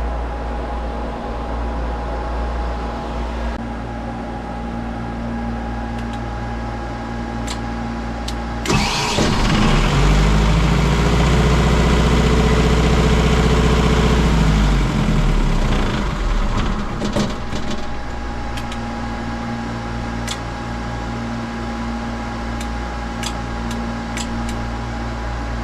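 Boat generator's engine turning over on its starter for about seven seconds, then stopping, over a steady engine-room machinery hum. A few sharp clicks follow.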